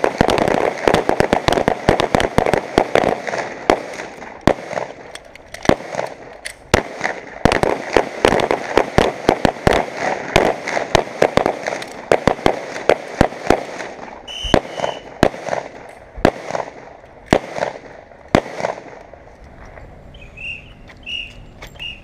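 Rapid pistol fire from a line of several shooters, dozens of shots overlapping: two dense runs with a thinner stretch between, as each shooter fires, does a tactical reload and fires again, then scattered last shots. A short whistle blast sounds about 14 seconds in.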